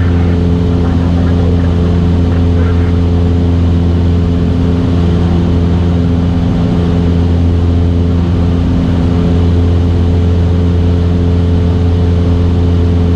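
Cessna 172S's four-cylinder Lycoming engine and propeller running steadily in flight, heard from inside the cabin as an even, low hum.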